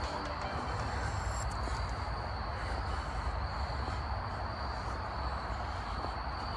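Crickets chirring steadily in a continuous high-pitched trill, over a steady background of noise.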